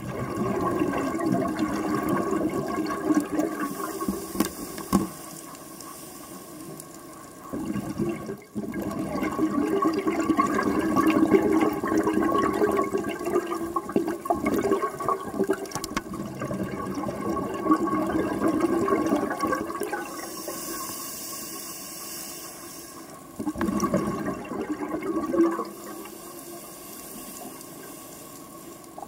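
Scuba diver breathing through a regulator underwater: long spells of rushing exhaled bubbles alternating with quieter stretches, with short hisses of air.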